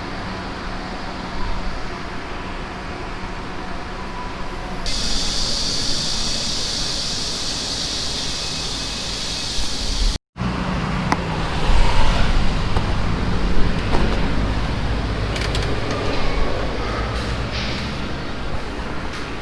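City road traffic, with cars and larger vehicles passing and a steady low rumble. A high hiss holds for about five seconds partway through. The sound cuts out briefly about ten seconds in, then the rumble comes back louder.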